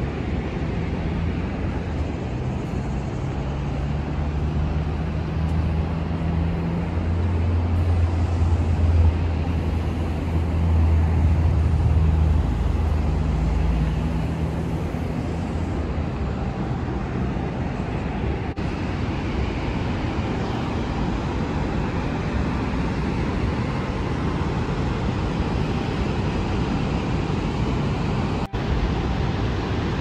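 Steady roar of the Horseshoe Falls, a dense rushing-water noise. Over it a road vehicle's engine hums low, from about two seconds in until about halfway, loudest in the middle.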